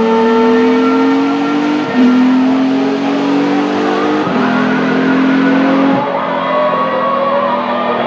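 Ferrari racing car engines at full throttle: one engine note climbs and drops sharply at upshifts about two, four and six seconds in, while a second car's engine rises in pitch underneath it in the second half.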